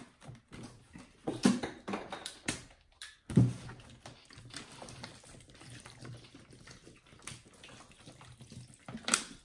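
Water pouring from plastic water bottles onto wads of torn toilet paper in plastic tubs, a steady splashing trickle. Scattered clicks come early on, with one sharp thump about three and a half seconds in.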